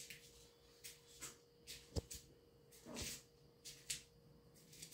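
Kittens wrestling on a quilted blanket: faint, scattered scratches and rustles of paws and bodies on the fabric, with a sharp knock about two seconds in and a softer thump about a second later.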